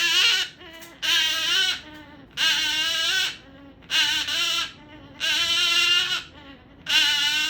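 Goffin's cockatoo giving a run of whining, cry-like calls, about six of them, each under a second long with short pauses between.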